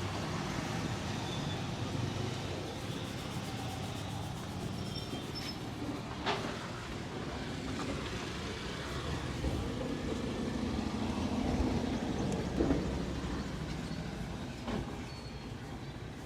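Steady low rumble of roadside traffic, swelling between about ten and twelve seconds in as a low engine hum passes. A few sharp clicks stand out above it, about six, thirteen and fifteen seconds in.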